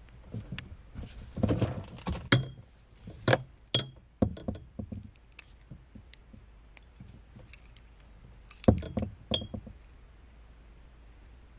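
Scattered knocks, taps and clatter of gear being handled on a kayak, in three clusters, a few with a brief metallic ring.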